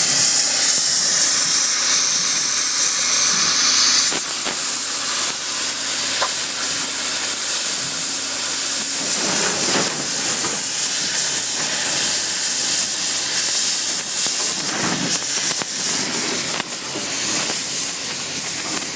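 Oxy-fuel cutting torch hissing steadily as it cuts through thick steel, with scattered crackles. The hiss thins suddenly about four seconds in.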